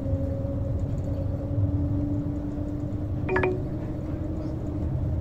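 Cabin of the Shanghai maglev train accelerating at around 80–95 km/h: a steady low rumble with a hum that creeps slightly up in pitch as the train gains speed. A brief ringing blip comes about three seconds in.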